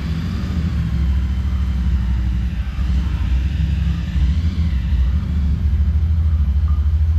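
Large commercial gas burner running under a cooking pan with a steady low rumble.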